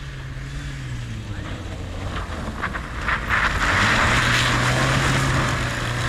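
Volkswagen Golf Mk3 engine held at steady high revs, dipping briefly and then held again, as the car slides on snow; a rushing noise of spinning tyres and thrown snow grows louder about three seconds in as the car passes close.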